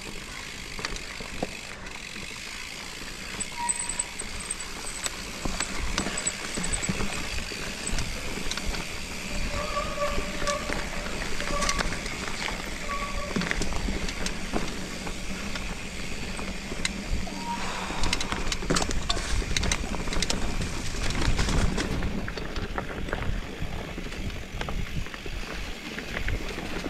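Mountain bike riding over a dirt trail: continuous tyre and drivetrain noise with frequent rattling clicks and knocks, growing louder and rougher after about seventeen seconds. A few short squeaks come about ten to thirteen seconds in.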